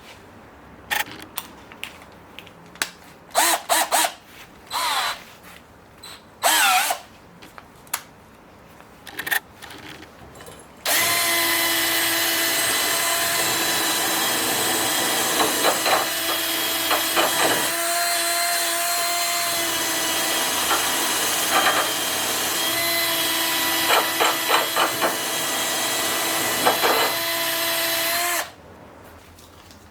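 An electric power tool starts about eleven seconds in, runs steadily with a high whine for about seventeen seconds, its tone shifting briefly near the middle, then cuts off. Before it, short scraping, squeaking and clattering handling sounds.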